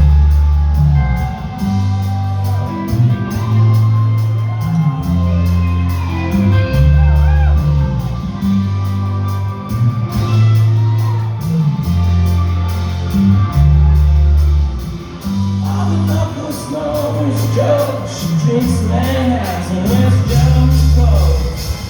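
Live rock band playing loudly in a concert hall: an instrumental stretch of the song, with held bass notes changing every second or so, guitars and a steady cymbal beat. Crowd shouts mix in.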